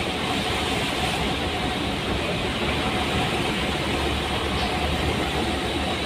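Steady engine drone and road noise heard from inside a bus driving on a wet, rain-soaked road, with heavy rain on the windscreen.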